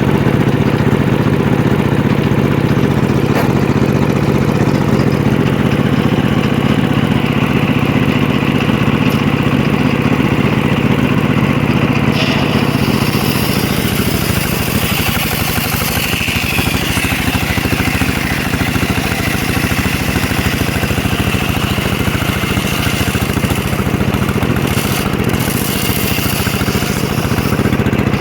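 Engine of a homemade circular-saw sawmill running steadily. About twelve seconds in, a loud hiss joins it: the blade is cutting into a mahogany log.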